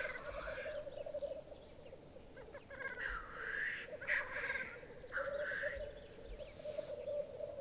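Male black grouse lekking: a steady bubbling, dove-like rookooing chorus, with short, louder and higher calls breaking in over it several times, about 3, 4 and 5 seconds in.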